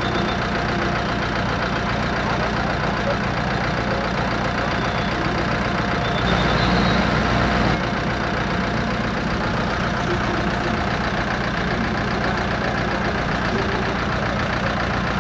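Medium tour bus's engine idling steadily, an even, unbroken drone.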